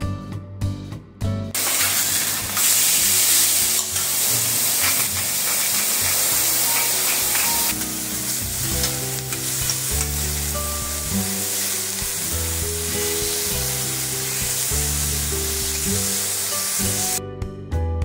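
Food sizzling on a teppanyaki steel griddle, beef steaks searing in the later part: a steady hissing sizzle that starts about a second and a half in, eases a little about halfway and cuts off near the end. Jazz guitar music plays underneath.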